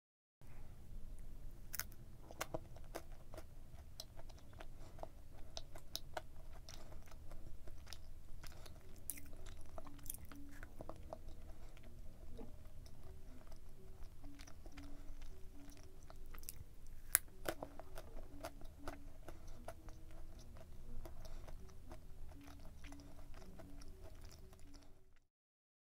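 Close-up chewing of a dense, chewy cheese brownie muffin, with many sharp wet mouth clicks and occasional crunches from its pretzel decoration. The loudest click comes about two-thirds of the way through.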